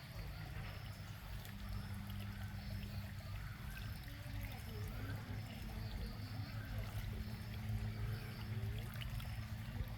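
Small rock waterfall in a garden pond trickling and splashing steadily, over a low steady hum.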